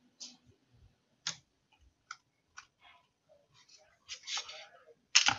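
Scattered light clicks and plastic scraping as fingers work the internal battery's cable connector loose from a laptop motherboard, with a louder, sharper click near the end.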